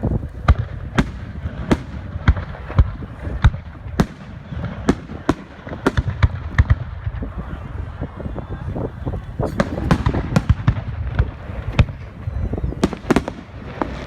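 Fireworks going off: an irregular run of sharp bangs and pops over a continuous low rumble, with a denser cluster of loud reports near the end.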